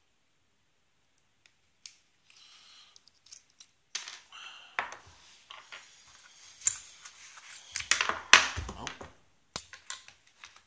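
Small metal clicks, clinks and scrapes of a pin-tumbler lock cylinder and small tools being handled, starting about two seconds in and growing busier, with a few sharper knocks near the end.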